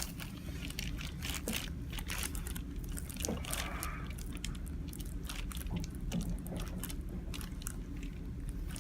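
Irregular small clicks and crinkles from hands working on a patient on a chiropractic treatment table, over a steady low hum.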